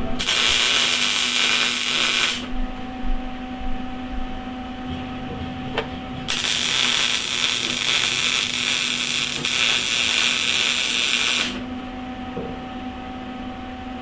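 Wire-feed (MIG) welder laying two welding beads: a loud crackling hiss about two seconds long at the start, then another about five seconds long from about six seconds in, with a quieter steady hum in between.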